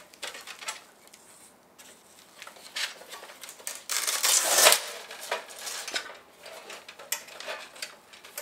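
Thin titanium stove parts being handled: scattered light metallic clinks and rattles, with a louder rustling scrape about four seconds in.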